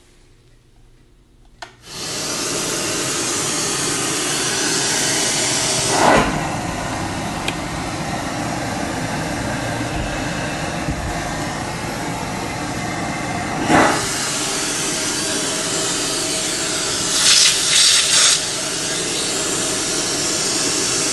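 A click, then a shop vac's suction pulling air through a barber-shop hair vacuum hose and wall inlet: a loud, steady rushing hiss. It surges briefly louder twice, and near the end gives a quick run of short hissing bursts.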